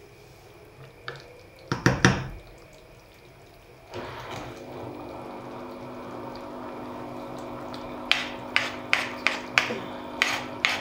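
Wooden spoon stirring a pot of soup, knocking hard against the pot twice about two seconds in. A steady hum starts about four seconds in. Near the end the spoon strikes the pot in a quick regular run, about three knocks a second.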